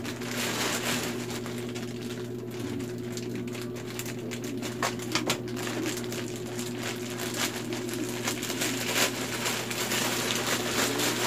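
Plastic courier mailer bag crinkling and rustling as it is handled and pulled open by hand, with a few sharper crackles about five seconds in, over a steady low hum.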